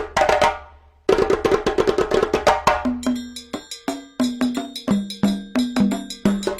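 Background music led by rapid wood-block-like percussion strikes, with a short break just before a second in; a pitched bass line joins at about three seconds.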